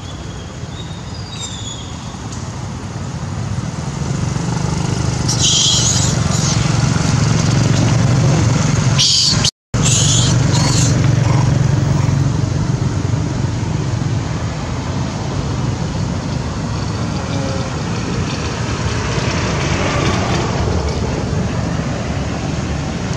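Steady low engine hum of a motor vehicle running, growing louder about four seconds in. Brief high-pitched bursts stand out over it twice, around six and ten seconds in, and the sound drops out for a moment near ten seconds.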